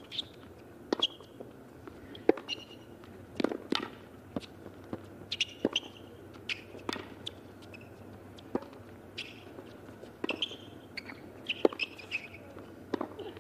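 Tennis ball on a hard court: a long rally of racket strikes and ball bounces going back and forth, irregularly spaced sharp pops, some much louder than others.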